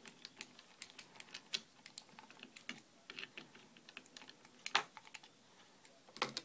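Irregular quick, faint clicks and ticks of a screwdriver and small parts as the magazine release of an airsoft M4 is unscrewed and taken off, with one louder click about five seconds in.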